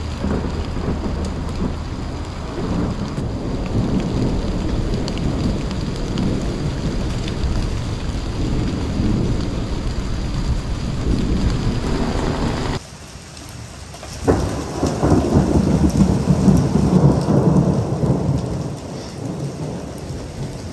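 Thunderstorm: steady rain with thunder rumbling. A little past halfway the sound drops off sharply, then a thunderclap cracks and rolls into a long, loud rumble that eases off near the end.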